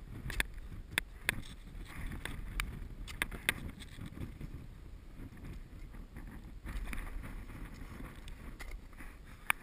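Ice axe and crampons clicking and scraping on snow and granite as a climber moves up a gully, with several sharp clicks in the first few seconds and another near the end. Low wind rumble on the microphone runs underneath.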